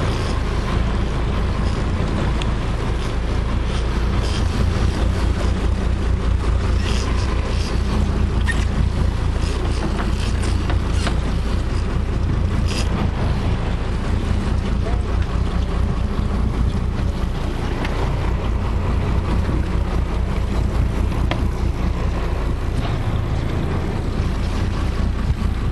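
Boat engine running steadily as a low rumble, with wind on the microphone and occasional faint clicks.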